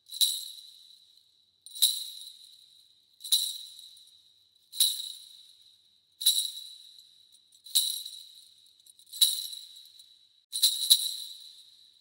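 Kagura suzu, a Shinto ritual bell tree of small crotal bells with loose balls inside, shaken in single jangles about one and a half seconds apart, each ringing out bright and fading before the next. The last shake, near the end, comes as two quick jangles.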